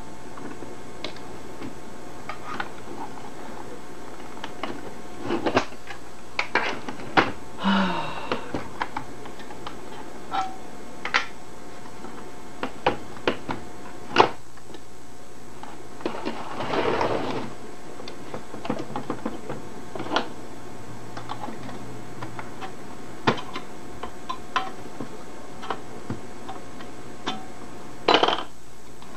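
Scattered clicks, knocks and scrapes of the plastic case and metal parts of a 1961 Webcor Microcorder reel-to-reel tape recorder being handled during disassembly, over a steady hiss. A longer rustling scrape comes a little past halfway, and a quick cluster of knocks near the end.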